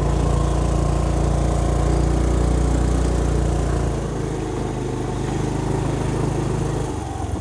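Motorbike engine running steadily as the bike rides up a gravel road. It eases off about four seconds in and drops lower again just before the end as the bike comes to a stop.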